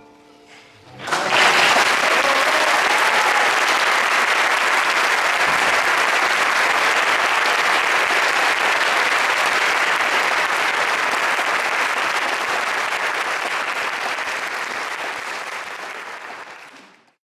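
Audience applauding: the clapping breaks out sharply about a second in after a brief hush, holds steady, then fades away near the end.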